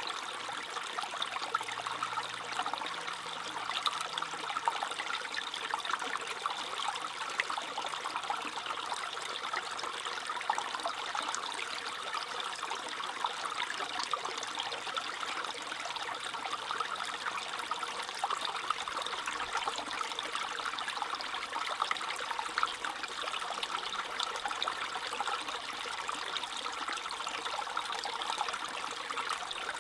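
A small stream trickling and babbling over stones: a steady, even patter of water.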